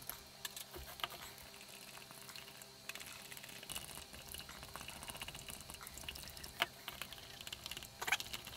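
Red-tinted clear casting resin being mixed in a plastic measuring cup: light scrapes, clicks and liquid movement as the cup is handled and stirred with a wooden stick.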